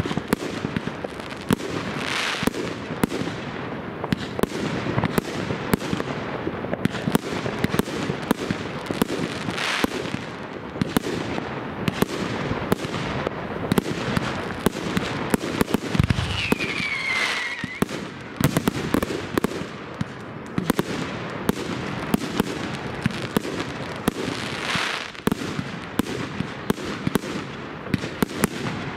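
New Year's Eve fireworks: a dense, unbroken barrage of bangs and crackles from rockets and firecrackers. A whistle falls in pitch about sixteen seconds in, together with a deeper thump.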